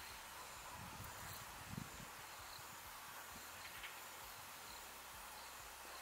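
Faint outdoor ambience: a steady high hiss, with a few soft low thumps about one and two seconds in.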